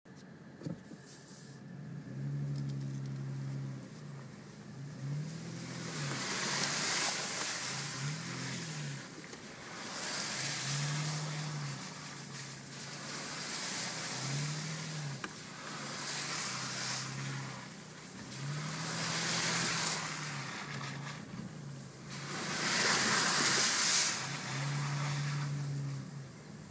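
Nissan Xterra 4.0-litre V6, heard from inside the cab, revving up and easing off again and again as it drives through mud holes. Every few seconds there is a loud burst of water and mud splashing against the body.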